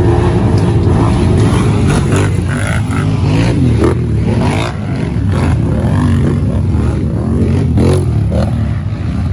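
Racing ATV (quad) engines revving hard as the quads pass and jump close by, the pitch rising and falling repeatedly with the throttle over a steady low drone.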